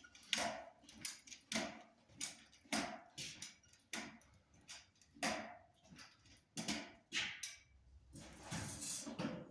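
A series of short knocks and clatters, roughly one every half second to second, with a couple of closer pairs near the end.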